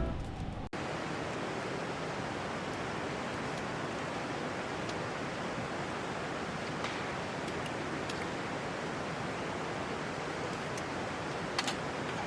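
Steady rushing of a flowing river, an even noise with no rhythm, with a few faint ticks on top.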